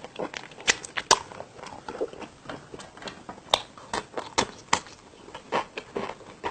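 A person chewing and eating spicy cheese tteokbokki close to the microphone: irregular wet mouth smacks and clicks, several a second.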